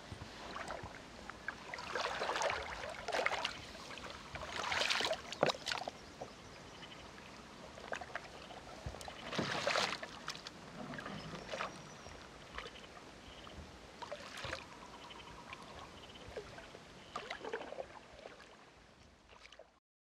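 Paddle dipping and splashing in water as a small boat is paddled, a stroke every few seconds with drips between; the sound cuts off suddenly near the end.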